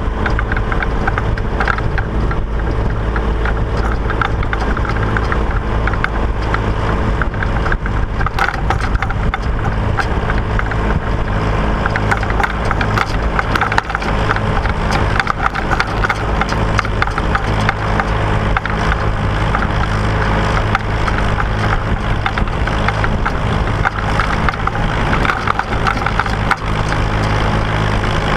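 Massey Ferguson 135 tractor engine running steadily under way, with constant rattling and clattering from the moving machinery.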